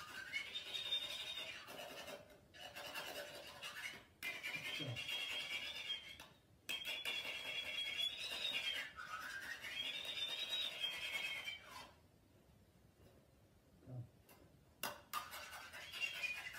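A thin, high-pitched melody of long held notes that slide up and down, with a few short knocks in between. It breaks off about 12 seconds in and starts again near the end.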